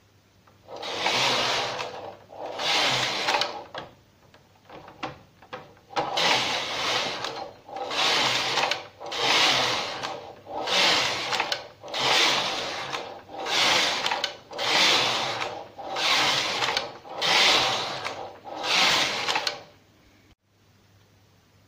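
Knitmaster 324 knitting machine carriage pushed by hand back and forth across the needle bed, knitting rows of stockinette. There are about a dozen passes, each about a second long, one roughly every one and a half seconds, with a short stretch of light clicks a few seconds in. The passes stop near the end.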